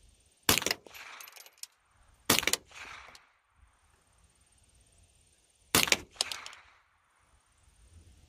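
Three single shots from a GSG-16 .22 semi-automatic rifle, the first two about two seconds apart and the third about three and a half seconds later, each a sharp crack followed by a short echo. They are slow aimed shots fired while sighting in the optic.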